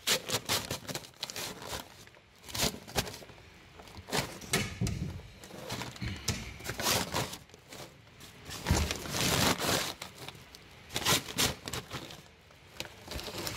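Thin plastic sheeting crinkling and rustling as it is pulled and bunched around a work boot, in irregular handfuls with pauses between.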